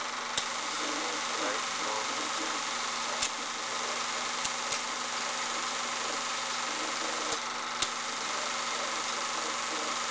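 Steady hum and hiss of an old film transfer, with about half a dozen sharp clicks scattered through it; no voices come through even though an interview is on screen.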